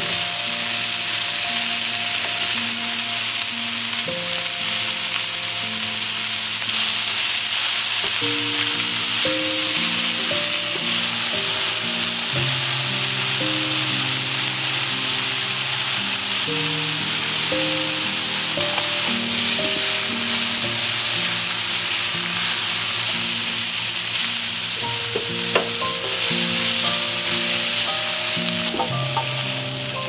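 Broccoli, mushrooms and bacon sizzling steadily as they stir-fry in a black iron skillet, with a few sharp clicks against the pan.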